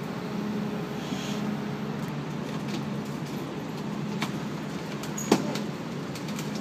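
Steady low machine hum on a construction site, with scattered light clicks and one sharp knock about five seconds in.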